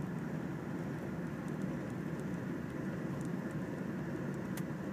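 Steady low rumble of a car's engine and tyres heard from inside the cabin, driving slowly on a snow-covered highway, with a few faint light ticks.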